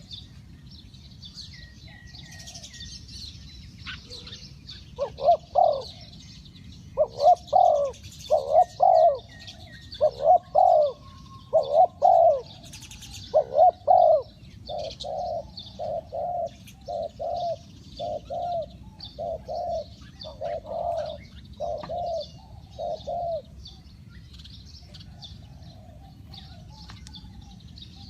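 Spotted dove cooing: a series of loud coos from about five seconds in, then a steady run of softer, evenly spaced coos that stops a few seconds before the end. Small birds chirp faintly throughout.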